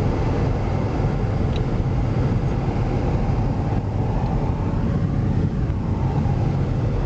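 A car driving slowly through deep snow: steady low engine and tyre noise with no change in pitch.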